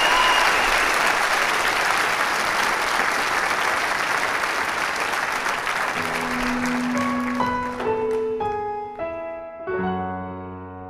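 A large audience applauding, the applause fading away over several seconds. About six seconds in, a piano starts a slow intro, single held notes at first and then fuller chords near the end.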